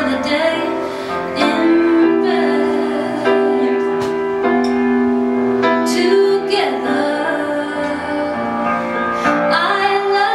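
Live song: a woman singing long, held notes over steady instrumental accompaniment.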